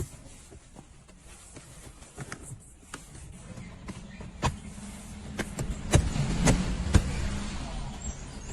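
Plastic car interior trim being pressed and tapped into place: a run of clicks and knocks, heaviest and loudest from about four to seven seconds in, over a low hum.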